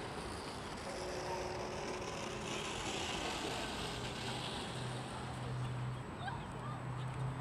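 Outdoor ambience: a steady rush of distant traffic, with a low steady hum coming in about halfway and growing stronger near the end.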